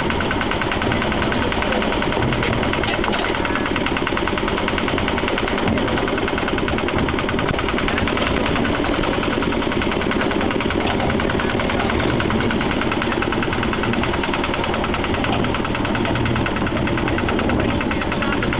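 Small diesel engine of a Lister autotruck (4wDM rail tractor) running steadily under way, with a fast, even chugging beat.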